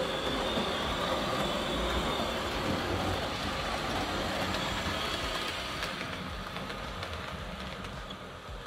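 Vintage 1970s Rivarossi HO-scale 2-8-4 Berkshire model steam locomotive running on the layout track: its electric motor and gears whir steadily with a high whine, with faint clicks from the wheels on the rails. The sound eases off gradually over the last few seconds.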